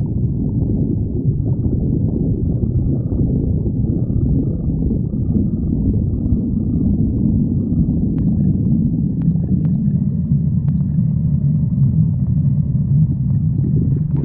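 A person's stomach growling: a continuous deep rumble that barely lets up, with a few faint clicks in the second half.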